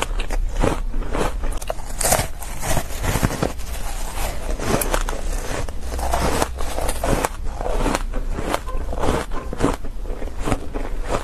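Shaved ice coated in matcha powder being bitten and chewed, a dense, irregular run of crunches and crackles with no pauses.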